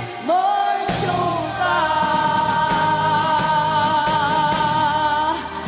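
Vietnamese pop song with a female lead singer and band backing; the singer holds one long note for about three and a half seconds.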